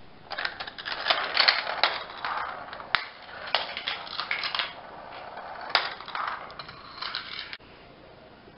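Marbles rolling and clattering through a plastic GraviTrax marble run: a steady rolling rattle broken by many sharp clicks as they drop onto and knock against the track pieces. It stops abruptly about a second before the end, leaving only faint background.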